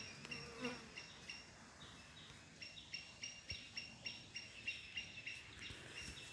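An insect chirping in a steady rhythm: short high chirps, about three to four a second, with a brief break shortly before the middle.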